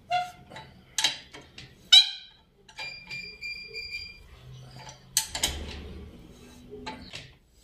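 Sharp metal-on-metal clinks, each with a short ring, roughly once a second with a gap in the middle: tools striking and working a screw-type bushing extractor on a motorcycle swingarm while its nut is tightened to draw out a worn swingarm bushing.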